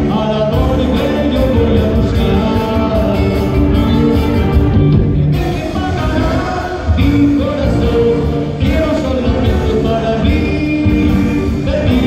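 Live band music amplified through PA speakers: a man singing lead into a handheld microphone over electric guitar and the band.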